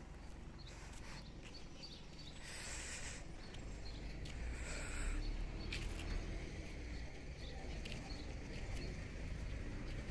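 Outdoor background sound: a low rumble throughout, with two short hissing sounds about two and a half and four and a half seconds in, and a few faint clicks.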